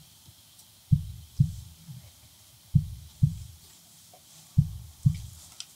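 Slow heartbeat sound effect: three deep double thumps, each 'lub-dub' pair about half a second apart, repeating roughly every two seconds.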